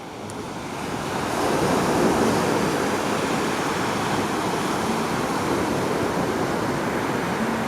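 Sea surf washing on the shore, a steady rushing noise that swells over the first couple of seconds and then holds.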